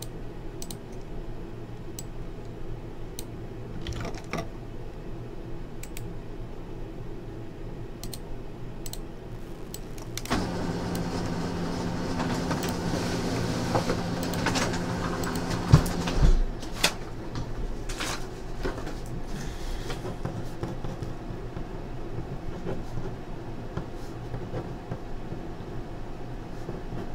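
Scattered computer mouse clicks and key taps over a steady low room hum. About ten seconds in, a louder whirring noise with a steady low tone starts; it runs for about six seconds, then stops.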